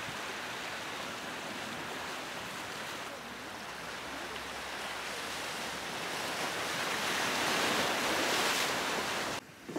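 Sea surf washing in over rocks and pebbles on a rocky shore: a steady rush of water that swells louder about seven to eight seconds in, then cuts off suddenly near the end.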